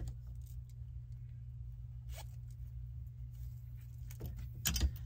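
Clothes on plastic hangers being handled on a closet rod: a few short scrapes and clicks, the loudest near the end, over a steady low hum.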